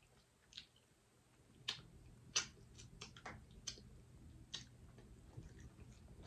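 Quiet eating sounds: chewing, with irregular soft clicks and mouth smacks, one louder click about two and a half seconds in.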